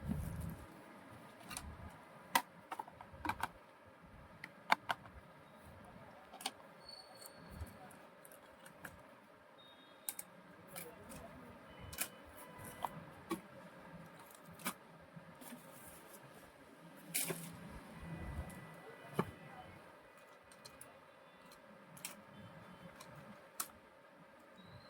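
Handling of a toy RC car and its packaging: scattered sharp clicks and taps of plastic parts against each other, with light rustling in between.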